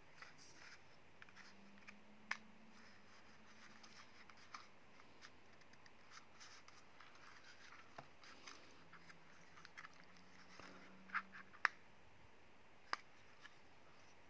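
Small plastic clicks and light handling of a folding mini camera drone as its arms are swung out, with a few sharper snaps about two seconds in and near the end.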